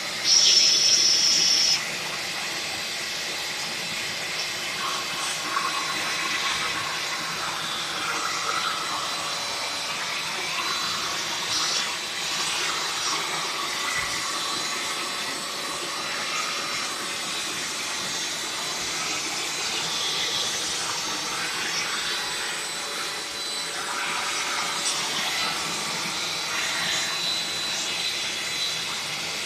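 Small electric hand vacuum cleaner running steadily with a high-pitched motor whine, with a louder burst in the first couple of seconds.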